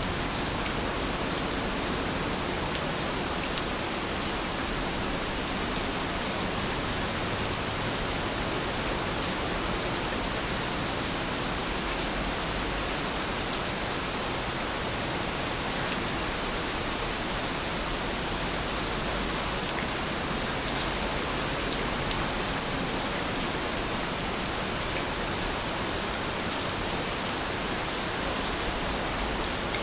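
Steady rain falling, an even hiss with no change in strength and the odd single drop ticking.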